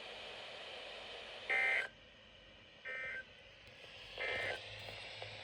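EAS end-of-message tones: three short bursts of SAME data warble, each about half a second long and spaced a little over a second apart, signalling the end of the alert. The first burst is the loudest.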